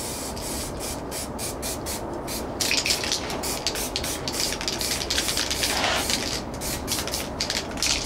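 Aerosol can of spray adhesive hissing as it is sprayed, in a quick series of short spurts.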